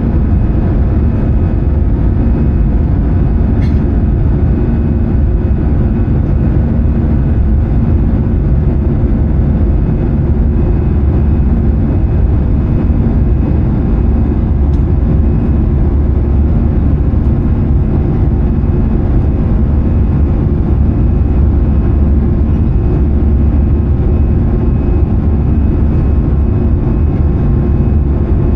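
Steady engine and airflow noise heard inside the cabin of an Airbus A320-214 with CFM56 engines, mostly low rumble with faint steady tones. A small click about four seconds in.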